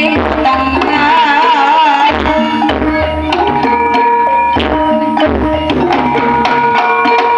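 Loud live traditional music through a sound system: hand-drum strokes over sustained melodic tones and a low bass, with a wavering melody line about a second in.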